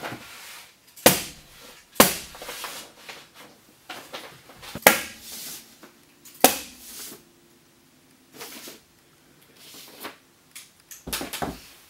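A series of sharp knocks and clacks at irregular intervals, four of them loud, with quieter clatter between and a short ring of room echo after each.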